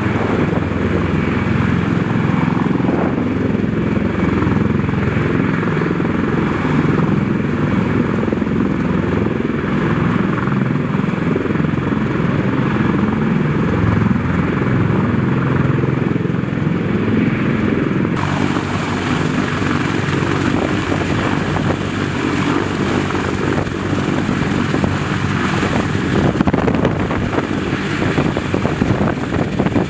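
CH-53K King Stallion heavy-lift helicopter hovering close by, its rotor and three turboshaft engines running loud and steady with a thin high whine. The sound changes slightly about eighteen seconds in, turning hissier.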